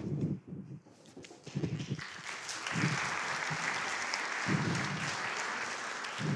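Audience applauding, building up about two seconds in and carrying on steadily, with a few dull low thuds underneath.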